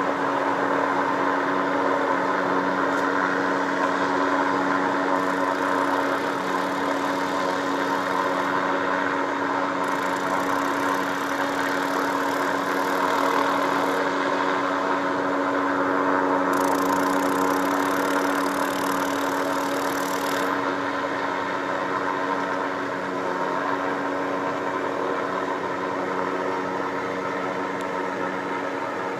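An engine running steadily at an even speed, a constant humming tone with no revving.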